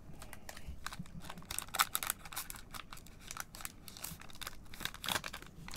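Foil wrapper of a 2021-22 Panini Donruss Soccer card pack crinkling and being torn open, a run of short crackles with the loudest about two seconds in and again near the end.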